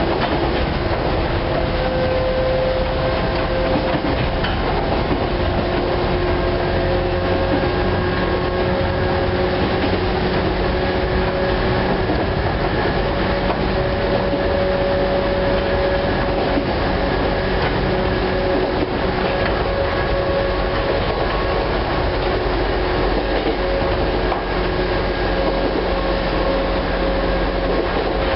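Chichibu Railway 1000 series electric multiple unit (a former JNR 101 series train) running at speed, heard from inside the passenger car: a steady whine over the constant rumble of the wheels on the rails.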